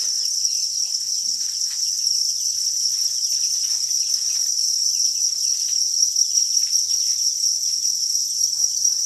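A dense chorus of farmed crickets chirping together in one unbroken, high-pitched trill, with light scratchy rustles mixed in.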